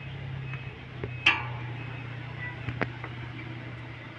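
A band sawmill's machinery hums steadily, with three sharp knocks. The loudest comes a little over a second in and rings briefly.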